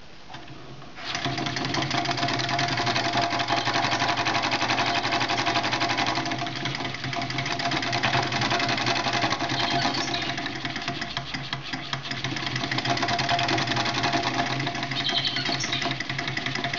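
Home-built gamma-type Stirling engine running, its wire crankshaft and linkages clattering in a fast, even rattle that starts suddenly about a second in.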